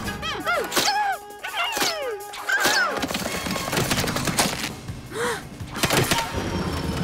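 Cartoon action soundtrack: music with sound effects, short swooping tones in the first three seconds, then a run of thuds and splats as sticky goo blobs fly at a speeding vehicle.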